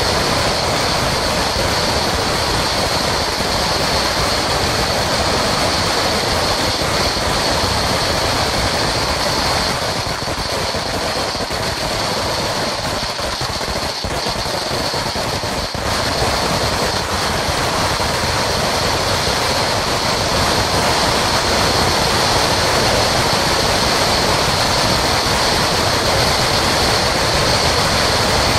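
A Sinturon ni Hudas, a long belt of firecrackers, going off in a dense, unbroken crackle of rapid pops. It dips a little in loudness partway through, then picks up again.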